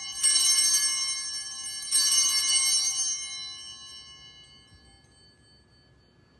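Altar bells rung at the elevation of the chalice, marking the consecration of the wine: two bright, high, many-toned rings about two seconds apart, each ringing on and fading away over a few seconds.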